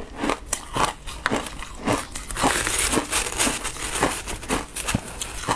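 Mouthful of shaved ice crunched and chewed close to a clip-on microphone: sharp crunches about three a second, with a finer crackling stretch in the middle.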